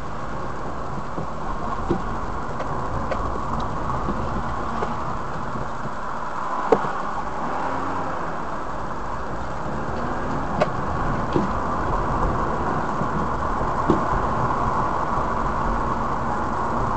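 Steady engine and road noise of a car driving in town, heard from inside the cabin through a dashcam, with a few short sharp knocks scattered through it.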